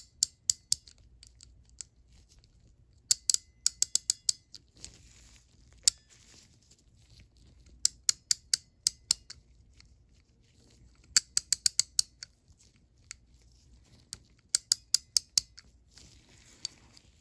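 Stanley 91-929 3/8" drive ratchet worked back and forth with its head open: the pawl clicks rapidly over the 45-tooth gear in five short runs, a few seconds apart, with faint handling rustles between them.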